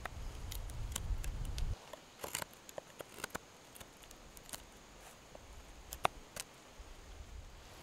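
Knife blade carving a green stick: scattered small sharp clicks and scrapes as the edge bites and chips of bark and wood break away. A low rumble stops abruptly just under two seconds in.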